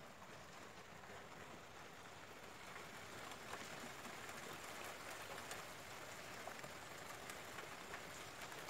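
Faint steady rain falling, with scattered drop taps, a little louder from about three seconds in.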